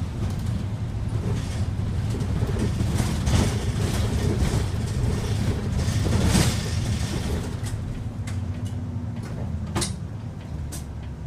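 City bus engine and road noise heard from inside the cabin while driving: a steady low rumble with a few sharp rattles in the second half, easing off slightly near the end.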